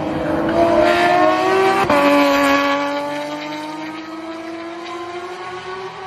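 A car engine accelerating hard: its pitch rises, drops suddenly with an upshift about two seconds in, then climbs again in the next gear as the car pulls away and fades.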